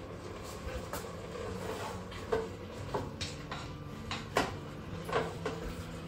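A utensil scraping and knocking against the inner bowl of a Crockpot Express multicooker while mince is stirred as it browns on the sauté setting. Irregular scrapes and clicks, with the sharpest knock about four seconds in.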